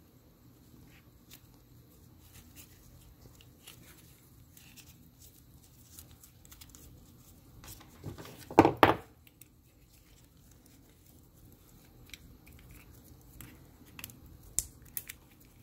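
Gloved hands handling a steel hydraulic cylinder gland and its new rubber seals: faint scattered clicks and taps, with one loud noise in two quick parts about halfway through.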